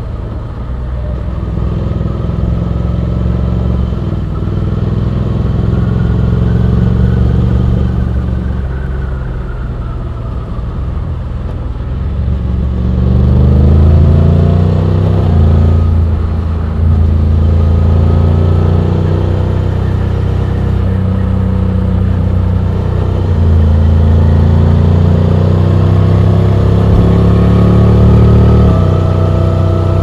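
Honda X-ADV 750's parallel-twin engine pulling under acceleration. Its note climbs and then steps to a new pitch several times as the dual-clutch gearbox changes gear.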